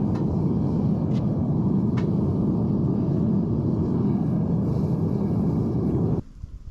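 Metal-melting furnace burner running with a steady, low rushing noise, then shut off suddenly about six seconds in.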